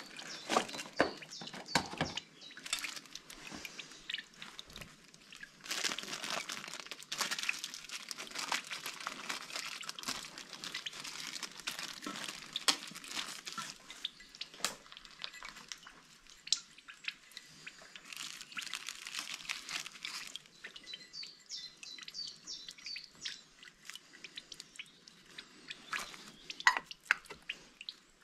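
Rustling and crinkling of packaging and paper towel, with scattered clicks and taps, as hands unpack a new diesel fuel filter and fit the element into its bowl. The handling is busiest in the middle and thins out towards the end.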